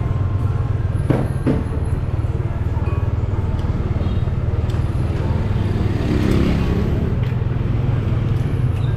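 Street traffic: a steady low rumble of motor vehicles, with two sharp clicks a little over a second in and a louder vehicle passing about six seconds in.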